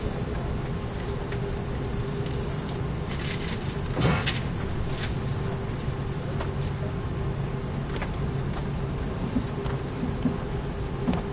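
Airbus A330 cabin noise while the airliner taxis: a steady low engine and rolling rumble with a steady hum, and a single thump about four seconds in, with a few faint clicks here and there.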